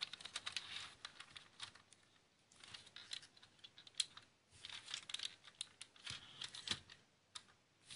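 Plastic LEGO bricks being handled: irregular small clicks and taps as fingers work over the model's plates and hinged roof hatch and turn the model over, with a sharper click about four seconds in.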